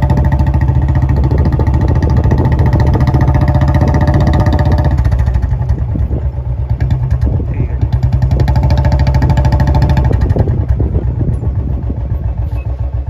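Motorcycle engine running steadily close by, its note changing about five seconds in and easing off and quieter near the end.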